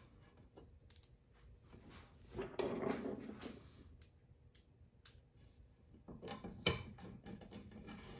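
Light clicks and rattles of small screws and hardware being handled and sorted, with a louder rustling clatter about two and a half seconds in and another cluster of clicks about six seconds in.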